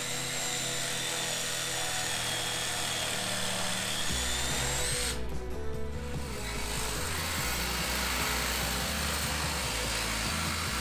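A cordless power tool cutting through a steel truck chassis rail: a steady high motor whine with a hiss from the cut. It stops briefly about halfway through, then starts again, over background music with a stepping bass line.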